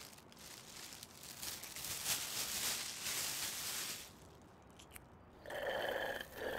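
Eating sounds: a paper food wrapper crumpling and crunching, with chewing, for a few seconds. Near the end come two short, squeaky pitched sounds.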